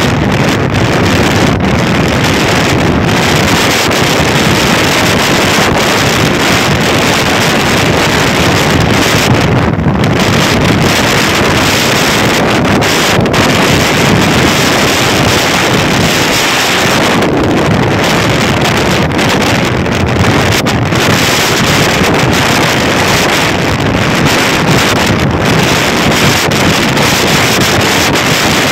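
Wind buffeting the microphone: a loud, steady rush with no break.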